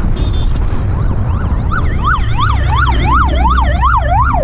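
Electronic siren of an emergency vehicle yelping rapidly up and down, about three sweeps a second. It fades in about a second in and grows loud as the vehicle draws alongside, over the steady low rumble of a motorcycle ride.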